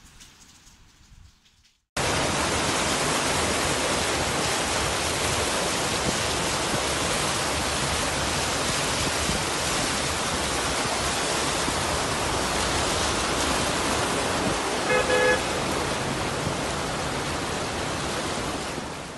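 Loud, steady rushing noise of a heavy rainstorm over flooded streets, starting abruptly about two seconds in. A car horn toots briefly about fifteen seconds in.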